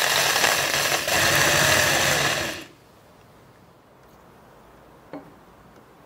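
Electric drill running with a twist bit boring into a wooden board, loud for about two and a half seconds with a brief dip about a second in, then stopping suddenly. A faint click follows a few seconds later.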